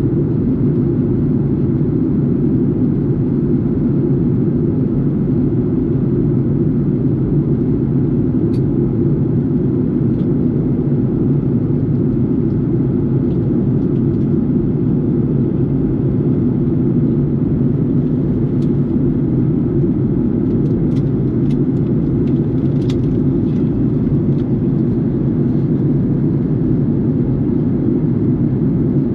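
Steady low cabin noise of a jet airliner in flight: engines and airflow, even and unchanging, with a few faint clicks now and then.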